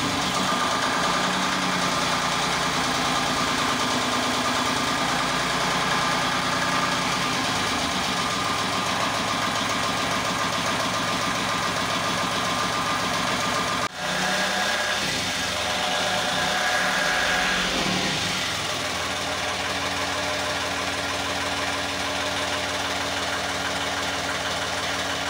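Inboard marine diesel engine running steadily, heard close up through its open engine-bay hatch, with a brief break about halfway through.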